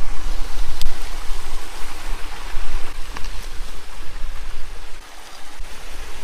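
Creek water running over small rocky waterfalls: a steady rush with a deep rumble underneath. Two faint clicks come about one and three seconds in.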